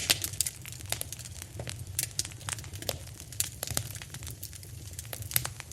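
Fire burning hard, with dense, irregular crackles and pops over a steady low roar.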